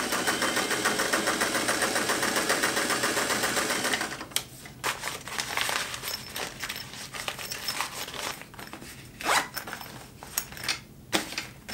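Singer 503A Rocketeer sewing machine running at an even speed, stitching, then stopping about four seconds in. After it, scattered clicks and rustling as the sewn fabric pouch is handled.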